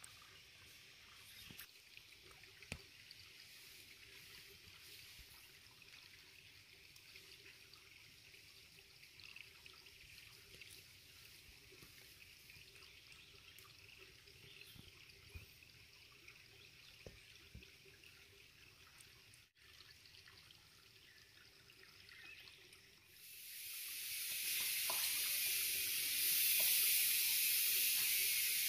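Faint kitchen hiss with a few small clicks, then near the end water starts running from a tap in a loud, steady rush.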